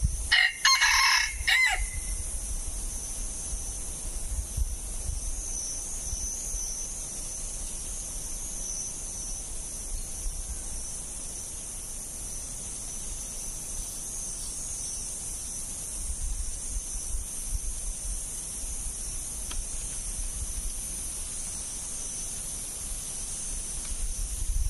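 A red junglefowl rooster crows once, a short clipped crow of about a second and a half, just after the start. A steady high hiss runs underneath.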